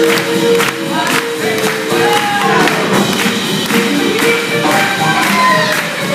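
Up-tempo swing music from a live band, with a steady beat of about two strokes a second under sliding melody lines.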